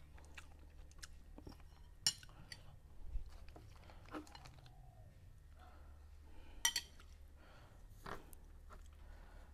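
A person eating, chewing, with a few sharp clinks of a metal spoon against ceramic plates; the loudest come about two seconds in and near seven seconds.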